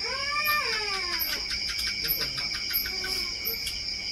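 A cat meowing once, a drawn-out call that rises and then falls in pitch, over steady night-time cricket and insect chirping.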